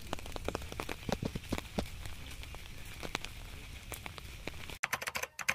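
Rain falling on wet brick paving and flooded ground: a steady hiss with irregular sharp ticks of individual drops. About five seconds in, a brief stuttering electronic burst cuts in.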